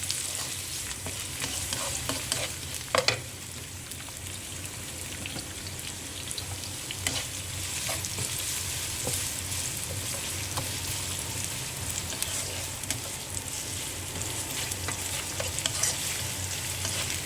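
Sliced onions, curry leaves and garlic sizzling in hot oil in a pan, with a spatula scraping and knocking against the pan as they are stirred; the loudest knock comes about three seconds in.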